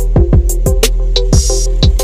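Background music with an electronic beat: deep kick drums dropping in pitch, sharp hi-hat strokes, a steady bass and short synth notes.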